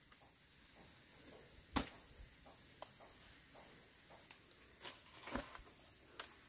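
A steady high-pitched insect trill runs on one unbroken tone, with scattered short knocks and clicks; the sharpest knock comes a little under two seconds in, and a few more come around five seconds in.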